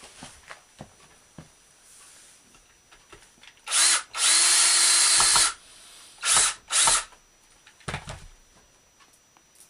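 Power drill driving a long wood screw through a washer into the spinning wheel's wooden leg. It gives a short burst, then a steady run of about a second and a half, then two quick short bursts as the screw is snugged down. A few light clicks come before it as the screw is set in place.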